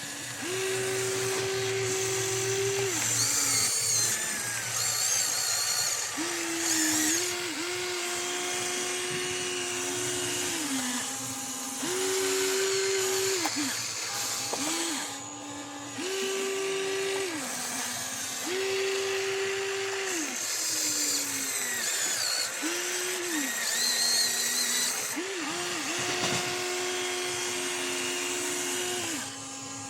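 Small electric motors of radio-controlled construction models whining in repeated bursts of one to three seconds. Each burst glides up in pitch as it starts and down as it stops, with short gaps between.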